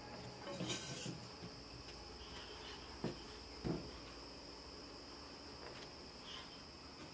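Faint handling of cookie dough on a wooden tabletop: a rustle about a second in as the dough is lifted from the metal bowl, then two soft knocks as it is set down and cut with a plastic dough scraper. A steady, faint high-pitched whine runs underneath.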